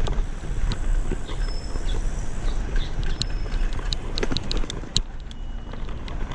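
Wind buffeting and riding noise on a neck-mounted camera microphone while cycling: a steady low rumble with scattered short clicks and rattles throughout.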